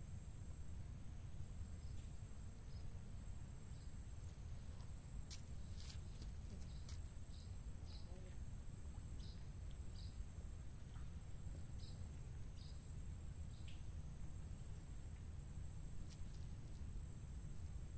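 Insects droning steadily at one high pitch, with scattered brief higher chirps and a low steady rumble underneath.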